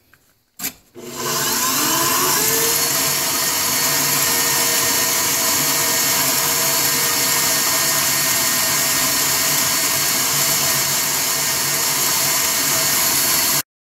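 KitchenAid stand mixer switched on at high speed, its wire whisk beating egg yolks and vinegar in a stainless steel bowl into mayonnaise. After a click the motor's pitch rises as it spins up, then it runs steadily until it cuts off suddenly near the end.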